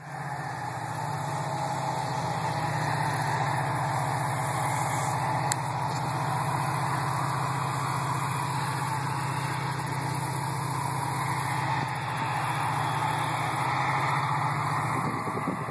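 A heavy engine running steadily with a low drone, over an even rushing noise. The drone fades near the end.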